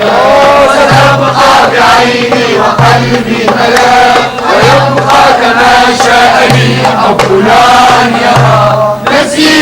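A group of scouts chanting a song together in unison, with a low beat repeating about once a second under the voices.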